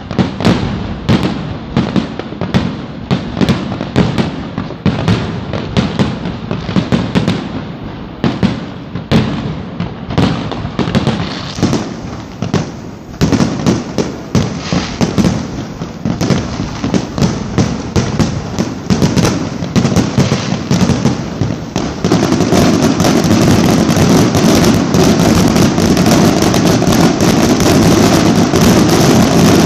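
Fireworks going off in quick succession, a run of sharp bangs several a second. About two-thirds of the way in they merge into a dense, unbroken crackle.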